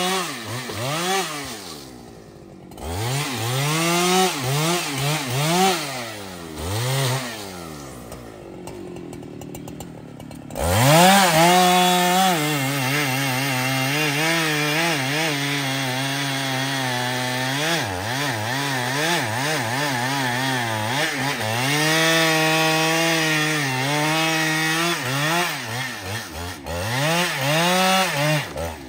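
Husqvarna 395XP two-stroke chainsaw revving up and down in short bursts and easing off twice. About ten seconds in it goes to full throttle and holds a steady, lower pitch under load as the chain cuts through a large trembesi log, with a few revs near the end.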